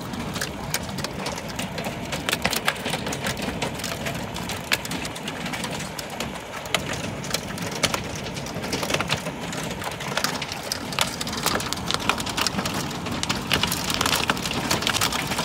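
Hail falling with rain onto wet asphalt and a concrete sidewalk: a steady hiss peppered with many sharp, irregular ticks of hailstones striking.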